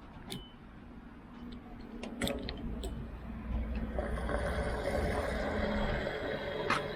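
Pickup truck engine running, growing louder about two seconds in, with scattered clicks and knocks.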